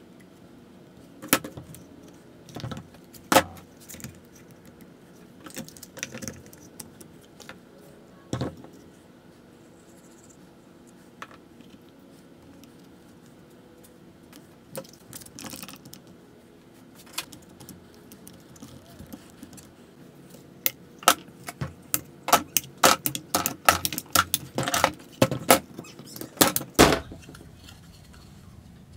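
Irwin Quick-Grip bar clamps being handled and set down on a wooden workbench: a few scattered clicks and knocks at first, then a dense run of plastic-and-metal clatter for several seconds near the end.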